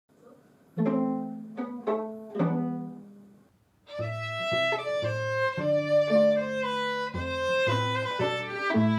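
A string quartet playing. About a second in come four sharp chords that ring and die away, then after a short pause the violins, viola and cello take up sustained bowed notes over a low line.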